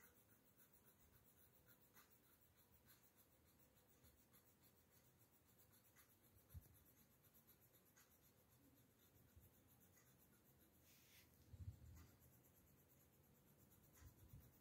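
Faint scratching of a coloured pencil shading on paper, with a few soft low thumps, the loudest a little after the middle.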